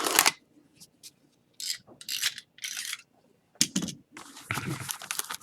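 A sealed trading-card hobby box being opened by hand: a series of short scrapes and rasps, then longer rubbing and scraping of the wrapper and cardboard near the end.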